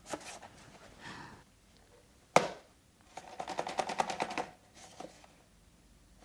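Packaging of a cardboard blind box being handled and torn open. There is a sharp snap about two and a half seconds in, then a quick run of crackling ticks lasting over a second.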